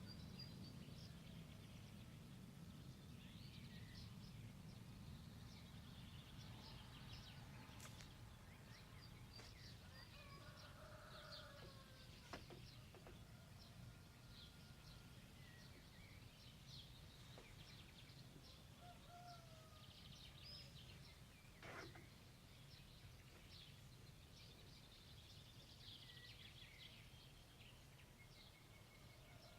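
Faint chorus of many small birds chirping and calling, over a steady low rumble, with a couple of faint clicks.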